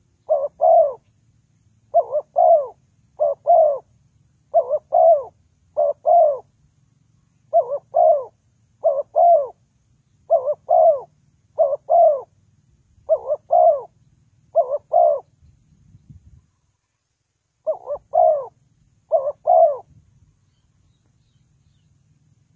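Spotted dove cooing: a string of paired coos, one pair about every second and a half, with a short pause about two-thirds through and two more pairs before the calls stop.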